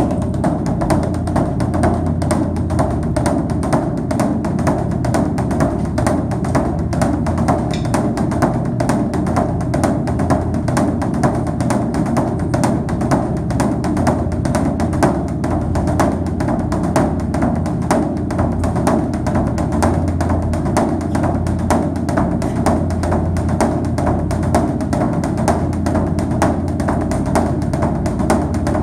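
Background music carried by a fast, steady percussion beat of wood-block-like clicks and drums over a low bass.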